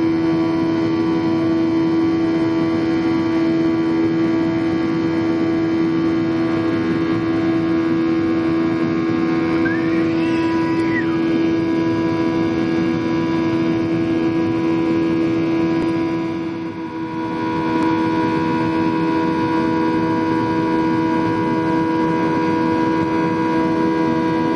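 Steady drone of a jet airliner's turbofan engines heard inside the cabin while climbing after takeoff: a constant low hum over a rushing noise. The sound dips briefly about 17 seconds in.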